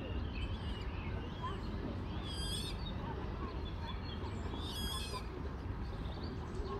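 Songbirds chirping in riverside trees, one of them repeating a short, high, rapid song phrase about every two and a half seconds, over a steady low rumble.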